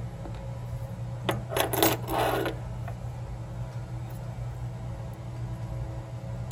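Small metal lock parts (pin tumblers and springs) clinking and rattling against a hard surface for about a second, starting a little over a second in.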